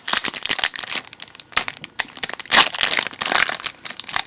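Foil Yu-Gi-Oh booster pack wrapper crinkling and crackling as it is torn open and the cards are worked out, a dense run of crackles with a few louder rustles.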